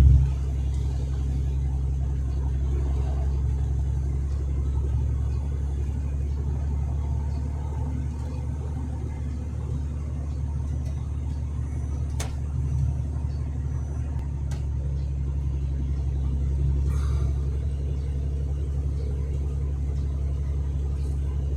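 Truck engine and road noise droning steadily from inside the cab while driving, with a few faint clicks.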